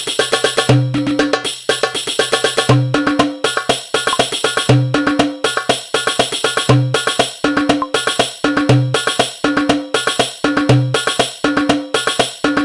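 Hadroh darbuka and habsyi percussion in a koplo-style rhythm, played as a repeating loop: a deep bass stroke about every two seconds, with a pitched mid stroke and quick higher strokes and tambourine-like jingles filling between.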